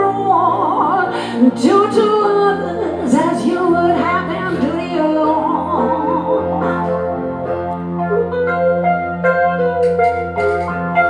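Live female vocal in a singer-songwriter performance: wordless, sliding vocal runs over sustained accompaniment chords. The voice drops out in the second half, leaving a held chord ringing.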